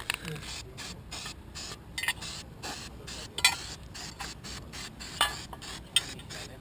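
Small metal winch parts, gears and roller bearings, clicking and clinking as they are handled and fitted onto the winch base: irregular short knocks, the loudest about three and a half and five seconds in.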